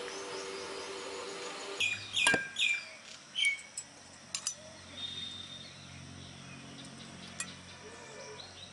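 Scattered short bird chirps mixed with a few light clinks of stainless-steel plates and serving utensils, over a faint low hum.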